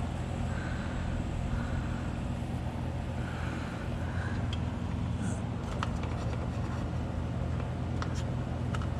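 A steady low hum in the background, with a few faint light clicks and ticks in the second half as a wire is worked along the motorcycle's frame.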